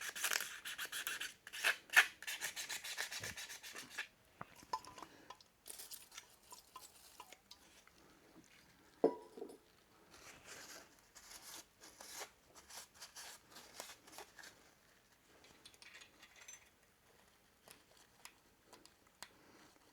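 Sandpaper rubbing briskly on metal to clean corrosion off a spring and its mating surfaces. After about four seconds this gives way to quieter scraping and light metal clicks, with one sharper knock about nine seconds in.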